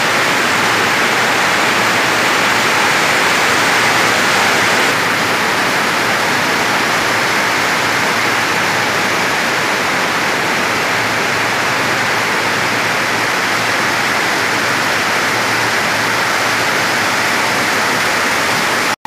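Heavy rain pouring down, a steady, even hiss that holds the same level throughout.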